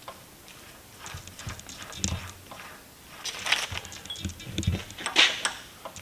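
Irregular metallic clicks and knocks as a small drill bit is set and the drill chuck on a vertical milling machine is handled and tightened, with the loudest knock near the end.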